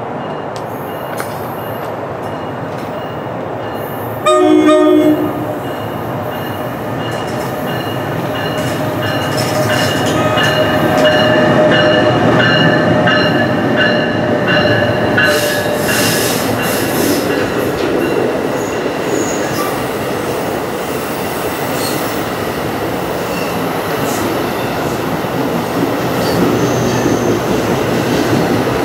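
NJ Transit push-pull commuter train of Multilevel coaches passing a station platform. It sounds a short horn blast about four seconds in. Then comes the rising rumble and clatter of the cars going by, with some wheel squeal in the middle.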